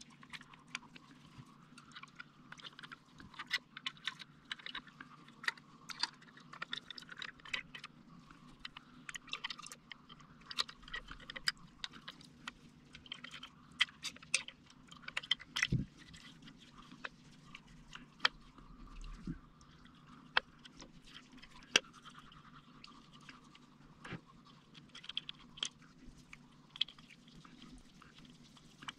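Irregular small clicks, ticks and scrapes of a screwdriver working screws into a plastic motor bracket while the parts are handled, over a faint steady hum.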